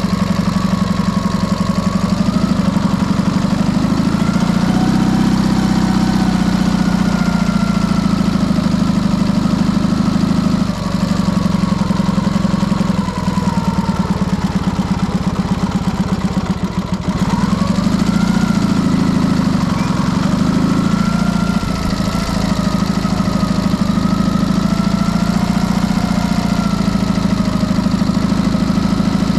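Dnepr motorcycle's flat-twin engine, fitted with PZ30 carburettors, running steadily, its speed drifting up and down. It eases off briefly a few times near the middle.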